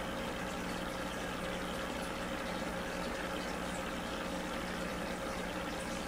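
Aquarium pump and filter running: a steady rush of moving, bubbling water under a low, steady electrical hum.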